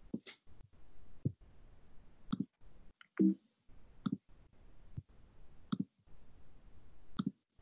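Faint computer mouse clicks and soft knocks of handling at a laptop, scattered about one a second, the loudest about three seconds in.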